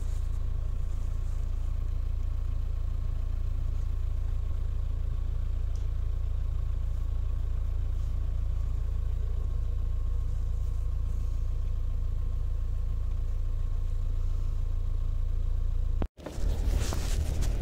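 Steady low engine and road rumble heard inside the cabin of a 4x4 driving slowly up a snowy mountain track. Near the end the sound cuts out for an instant and returns louder and rougher, with more hiss over the rumble.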